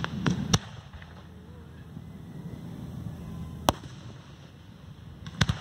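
Aerial fireworks bursting with several sharp bangs: one about half a second in, one near four seconds, and a quick pair near the end.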